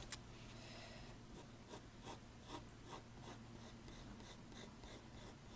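Graphite pencil drawing on paper: faint, short scratching strokes, about two to three a second, as curved construction lines are sketched.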